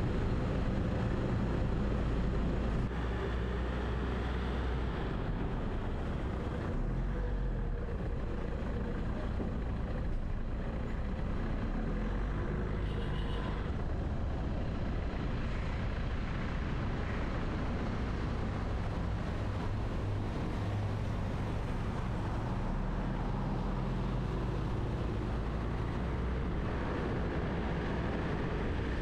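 Steady low rumble of a car driving through city traffic, engine and tyre noise with surrounding vehicles. A short high tone sounds briefly about halfway through.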